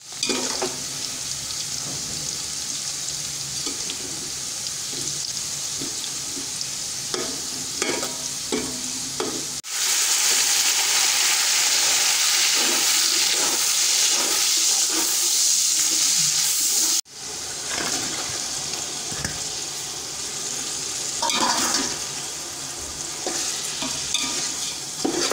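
Sliced onions and then beef frying in hot oil in a cooking pot, a steady sizzle with the knocks and scrapes of a spoon stirring. In the middle, for about seven seconds, the sizzle turns into a much louder hiss of steam as the meat goes into the hot oil, and it stops abruptly.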